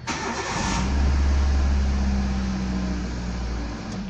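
Car engine started with the key: a brief burst of starter cranking, then the engine catches at once and runs with a strong steady low hum that stops near the end. It starts now that the blown fuse behind the crank-but-no-start fault has been replaced.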